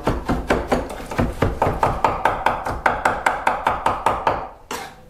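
Chef's knife chopping soft canned chipotle peppers finely on a wooden cutting board: quick, even knocks of the blade on the board, about five a second, stopping shortly before the end.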